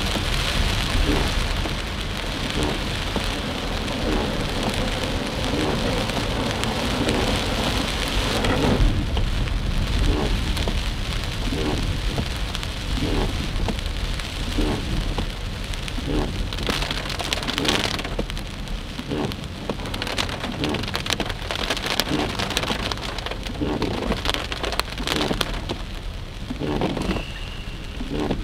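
Heavy rain pelting a car's roof and windshield, heard from inside the cabin, over a steady low rumble of the car driving on the wet road. The rain is densest for the first several seconds, then comes as a more broken patter of drops.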